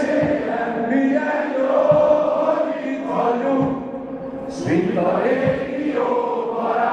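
A large crowd of football supporters singing together in unison, holding long notes that change pitch every second or so, with a few low thumps under the singing.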